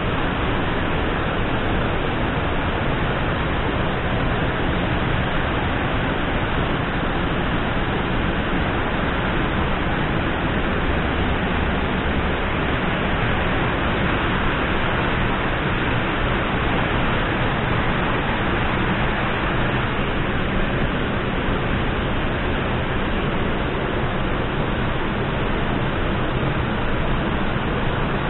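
Steady, unbroken rush of falling water: heavy rain and the nearby waterfall, with no separate drops or splashes standing out.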